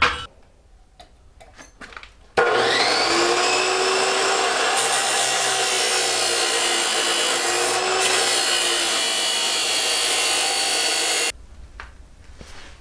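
Power saw spinning up with a rising whine, then cutting steadily through a steel pipe at an angle for about nine seconds before cutting off suddenly.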